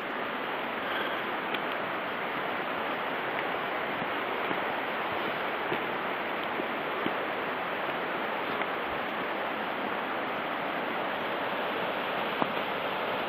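Mountain stream rushing steadily, with a few faint clicks on top.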